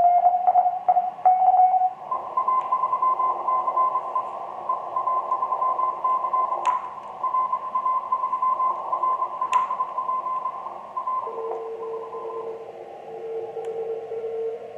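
Icom IC-7000 transceiver receiving the 20-metre CW band through its speaker: band hiss with a keyed Morse tone for the first couple of seconds, then a steadier, higher tone with two sharp clicks. Near the end the hiss narrows and a lower steady tone takes over as the receive filter is narrowed.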